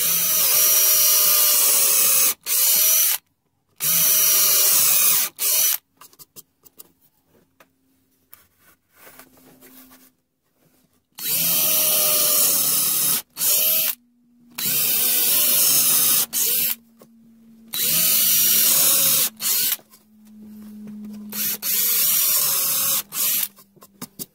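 Drill boring and countersinking holes into pine timber at a frame corner. It runs in repeated bursts of one to three seconds with short pauses between them and a longer pause in the middle.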